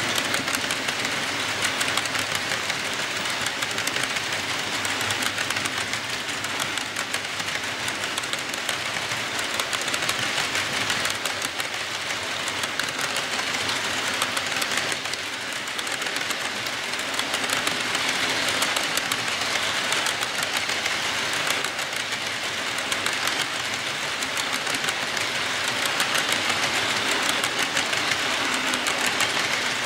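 HO scale model freight train rolling past: the hopper cars' small wheels clicking and rattling over the track in a fast, even stream, swelling and easing slightly as the cars go by.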